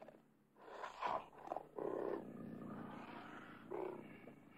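Cougar growling and snarling: a couple of short snarls about a second in, then a longer rasping growl, and another short snarl near the end.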